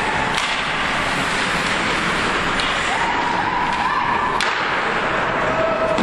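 Ice hockey game in an arena: a steady rush of rink and crowd noise, cut by three sharp clacks of sticks and puck. Drawn-out shouts from the stands come and go.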